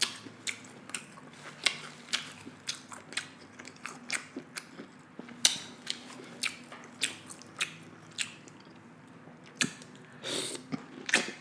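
Close-miked chewing while eating: wet mouth clicks and smacks, a few per second. There is a longer, louder burst of noise about ten seconds in.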